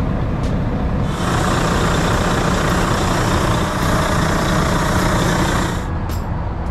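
HGV lorry's diesel engine idling with a steady low rumble. A loud, even hiss starts about a second in and cuts off sharply about five seconds later.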